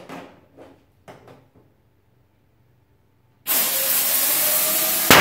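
Rubber balloons handled on a table, then compressed air from a compressor hose hissing loudly and steadily into a balloon for under two seconds, ending in a sharp pop as the balloon bursts.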